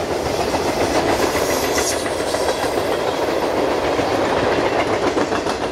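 Coal hopper cars of a freight train rolling past: a steady rumble of steel wheels on rail, with a quick run of clicks as wheels cross rail joints near the end.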